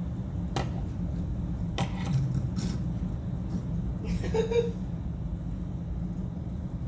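A steady low hum with a few sharp clicks in the first three seconds, and a brief voice-like sound about four seconds in.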